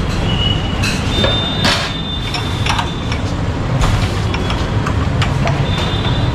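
Glasses and steel utensils clinking as crushed ice is dropped into glasses and a ladle is worked in a steel pot. There are several sharp clinks and a couple of brief ringing notes over a steady low rumble.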